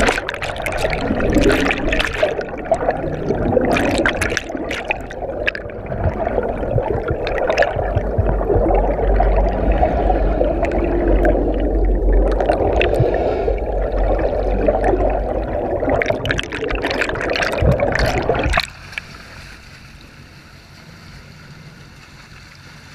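Muffled rushing and gurgling sea water, heard from a camera held underwater, with scattered sharp knocks and splashes. About three-quarters of the way in it cuts off abruptly to a much quieter steady hiss.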